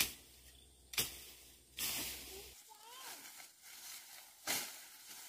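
Four sharp knocks or strikes: two a second apart at the start, a third just before two seconds in with a longer, noisier tail, and a fourth near the end. A faint wavering call sounds in between.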